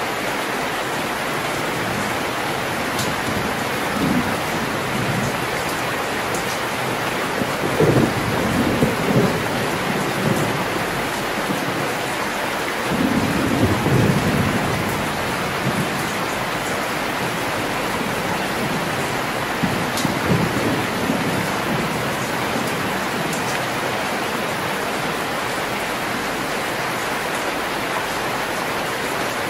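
Heavy rain falling steadily, with several low rolls of thunder coming and going: one brief roll early on, then stronger rolls about a quarter of the way in and around the middle, and a weaker one about two-thirds through.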